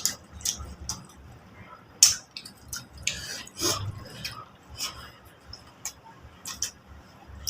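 People eating chicken: chewing and mouth sounds with scattered sharp clicks and smacks at irregular intervals.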